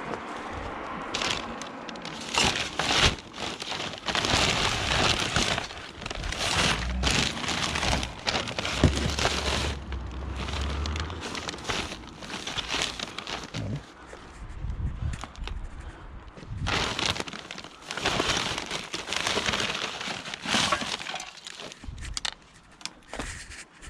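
Rummaging and handling of discarded scrap items: a run of irregular clattering, knocking and crinkling noises, with hard objects, taken to be heavy glass pieces, knocking together.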